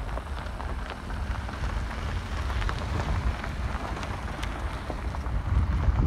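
Hyundai Tucson SUV towing a small caravan, driving slowly over a gravel track: a low rumble of engine and tyres with a scattered crackle of stones under the wheels, growing louder near the end.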